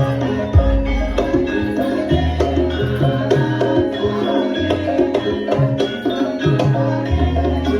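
Javanese gamelan music playing a Lengger dance piece: ringing pitched metal notes in a stepped melody over a pattern of low hand-drum (kendang) strokes.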